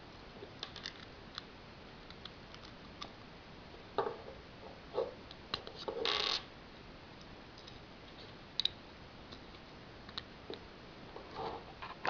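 Small LEGO plastic pieces clicking and clacking as a brick-built puzzle box is handled and taken apart: scattered light clicks, a few louder clacks about four and five seconds in, and a short scraping slide around six seconds in.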